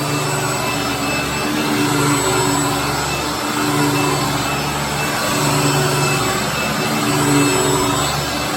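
Hoover WindTunnel Anniversary upright vacuum cleaner running on its TTI motor, very loud. A low hum in it swells and fades about every second and a half.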